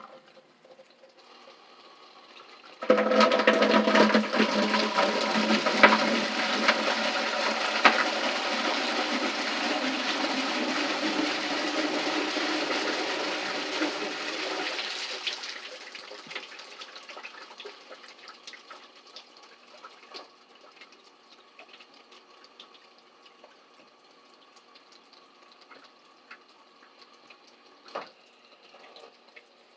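Toilet flushed: a sudden rush of water about three seconds in that runs for some twelve seconds, then dies away to a faint trickle and drips, with one sharp click near the end.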